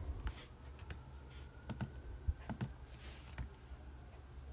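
Faint, irregular clicks of a computer mouse and keyboard, about a dozen short taps spread unevenly, made while trying to delete spreadsheet cells.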